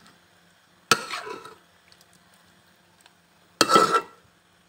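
Metal kitchenware knocking against a steel cooking pot twice, about a second in and near the end, the second knock louder with a brief ring, as the rest of the chicken curry is tipped and spooned onto the rice.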